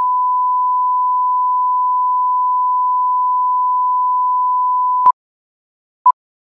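Bars-and-tone test signal: a steady single-pitch reference tone that cuts off about five seconds in, followed a second later by one short countdown-leader beep.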